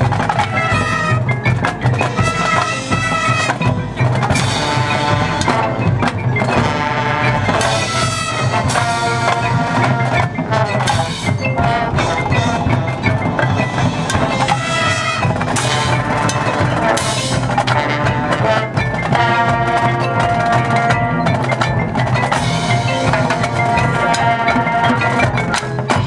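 Marching band playing its field show, with the front ensemble's marimbas and other mallet percussion and drums prominent.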